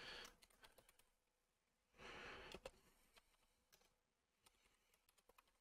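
Near silence: a faint breath, like a sigh, about two seconds in, with a few faint clicks from a computer mouse.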